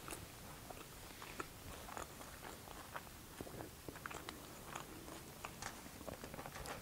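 Faint close-up chewing of a mouthful of loaded cali fries, with small scattered mouth clicks throughout.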